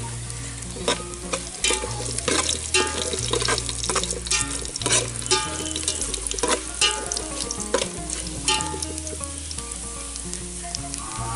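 Whole garlic heads frying in hot mustard oil with whole spices in an aluminium pot, sizzling with many sharp crackles and spits. A spoon stirs and scrapes in the pot, tempering the spices and garlic at the start of a curry base.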